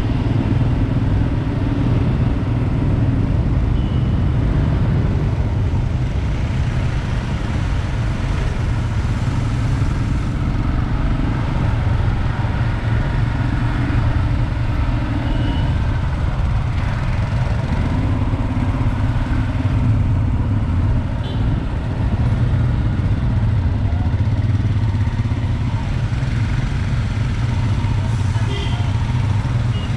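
Royal Enfield Himalayan 411cc single-cylinder motorcycle engine running steadily while riding, with other motorcycles close ahead.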